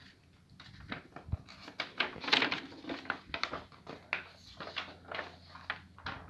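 Sheets of folded paper rustling as they are handled, leafed through and unfolded, in irregular short bursts, loudest a little past two seconds in.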